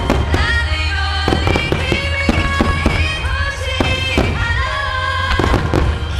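Aerial firework shells bursting in a rapid, irregular string of bangs over loud, continuous music.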